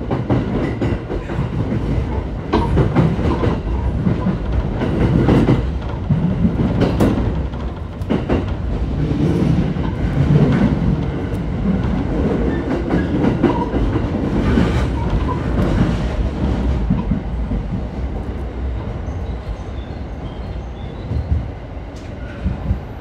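Electric commuter train running at about 40 km/h, heard from inside the front of the train: a steady rumble of wheels on rail, with irregular clacks and knocks as the wheels run over points and rail joints.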